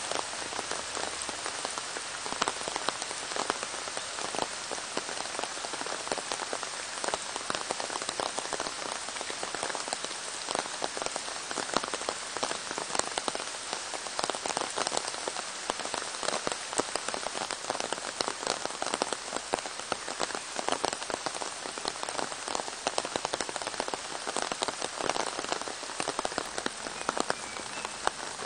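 Rain falling steadily on leaves, rocks and pooled muddy water, a continuous hiss dotted with many separate close drop hits.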